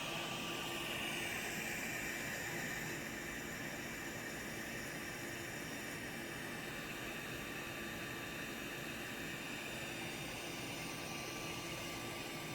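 3D printer running: a steady hiss from its cooling fans with faint whining tones from the motors, some of which shift in pitch during the first few seconds.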